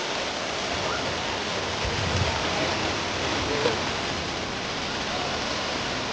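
Water pouring steadily from a splash pool's spray features and splashing onto the pool surface, with a brief low rumble about two seconds in.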